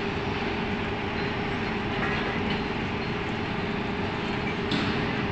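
Steady industrial drone from cement factory machinery, with a constant mid-pitched hum running through it.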